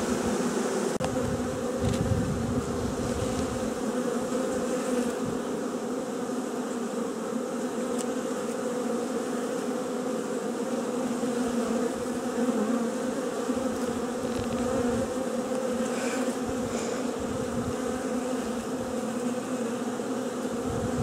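Honeybees from a freshly shaken-out package buzzing in a steady, even drone.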